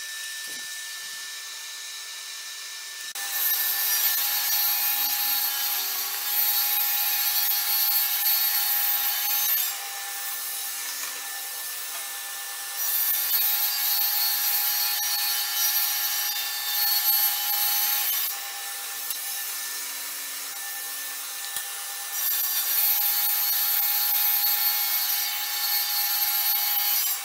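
Kity table saw running with a steady whine, ripping three strips from a 12 mm chipboard board one after another. Each cut lasts about five or six seconds and is louder, with a harsh high hiss, than the free-running blade between cuts.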